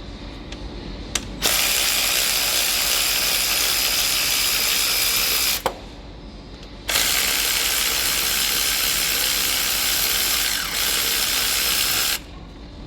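Ratchet wrench spinning an alternator mounting bolt loose: a continuous rapid ratcheting whirr in two long runs of about four and five seconds, with a pause of about a second between them.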